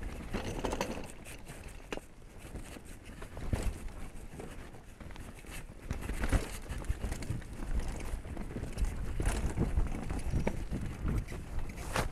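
Mountain bike riding fast down a rocky dirt trail: tyres rumbling and crunching over stones with frequent knocks and rattles from the bike, plus wind buffeting the microphone. The rumble grows louder and rougher about halfway through.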